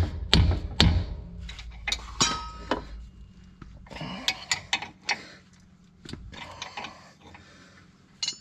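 Hammer blows on metal, two more in the first second, followed by scattered clinks and taps of metal tools and parts.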